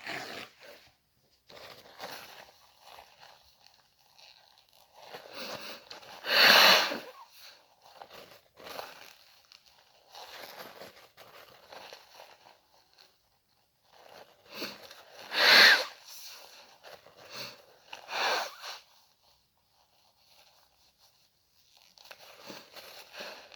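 A person blowing their nose into a tissue: two loud, noisy blows about six and fifteen seconds in and a shorter one near eighteen seconds, with fainter tissue rustling between them.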